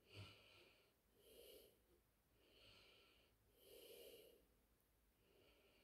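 Near silence with a person's faint, slow breathing, one soft breath about every second and a half.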